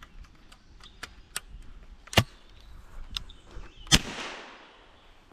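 Shotgun firing a cut-open shell holding only powder, with no wad or shot: a few light handling clicks, then two sharp cracks about two seconds apart, the second trailing off in a fading hiss. The report is weak because, with nothing holding the powder in, it builds no pressure.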